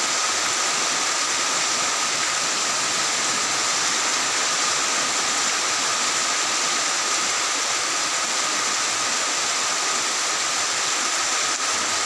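Heavy rain falling steadily on tiled roofs: an even, unbroken hiss.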